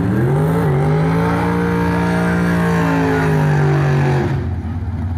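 Drag car's engine revving up and held at a steady high pitch for about four seconds while the rear tyres spin in a burnout, then cut off suddenly.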